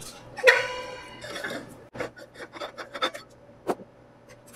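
Steel valve-protection cap being unscrewed from an argon cylinder's neck: a metallic clank that rings briefly about half a second in, then metal threads scraping and rubbing with a few light clicks.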